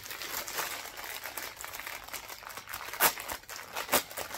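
Thin clear plastic packaging bag crinkling as it is handled and pulled open, with two louder crackles about three and four seconds in.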